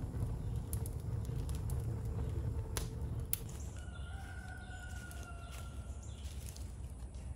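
Wood fire crackling in a fireplace, with a few sharp pops, over a low steady rumble. About four seconds in, a bird gives one drawn-out call lasting about a second and a half.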